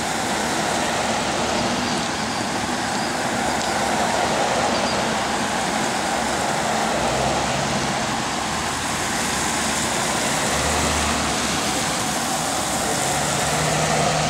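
Procession cars and police vehicles driving past one after another on wet pavement: a steady tyre hiss with a low engine hum, swelling a little as each vehicle goes by.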